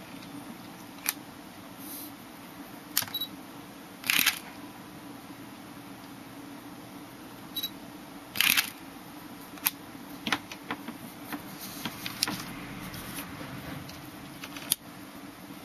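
Nikon D40 digital SLR shutter firing twice, each a quick double click of mirror and shutter, with a short faint beep about a second before each. Smaller single clicks of the camera's buttons and dial come in between.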